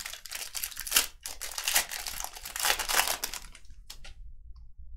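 A trading-card pack's wrapper being torn open and crinkled by hand, stopping about four seconds in.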